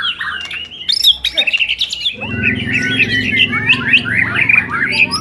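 White-rumped shamas singing over one another in a fast, dense run of varied chirps and whistles. About two seconds in, a low steady drone joins underneath.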